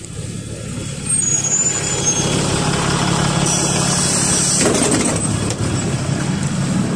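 Six-cylinder Cummins ISBe diesel engine of a NefAZ 5299 city bus running steadily, louder from about a second in, with a hiss of compressed air about halfway through.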